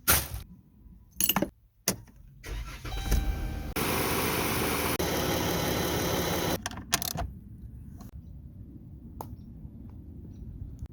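A Grand Caravan's 3.6-litre V6 is started and runs after the thermostat replacement: a few clicks, then the engine comes up to a loud steady run for a few seconds, which stops abruptly about two-thirds of the way through. A lower steady rumble follows.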